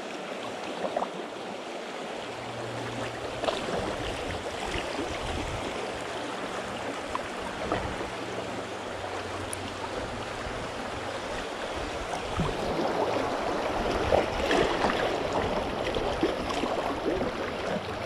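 Rushing, splashing water of a shallow river riffle around the bow of a moving kayak, getting louder in the last few seconds.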